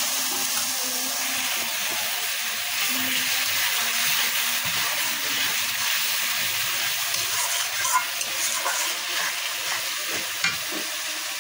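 Spice masala sizzling steadily in hot oil in a metal karahi while it is fried down and stirred with a metal spatula. A couple of sharp clicks of the spatula against the pan come in the second half.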